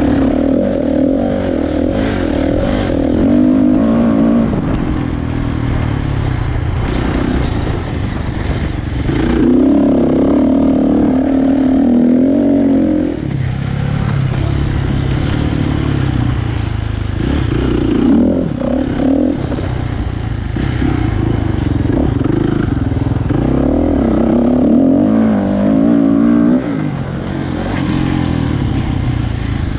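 Kawasaki dirt bike engine being ridden, revving up and easing off in repeated surges several seconds long.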